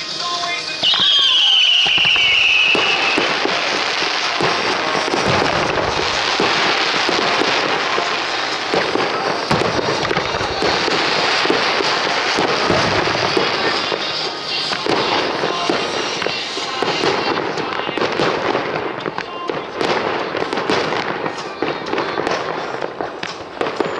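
Star mine fireworks display: shells launching and bursting in quick succession with dense crackling, over music played along with the show. A high gliding whistle sounds about a second in.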